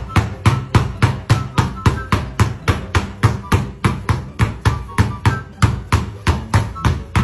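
Two basketballs dribbled at once on a hard floor: a quick, steady rhythm of bounces, about four or five a second.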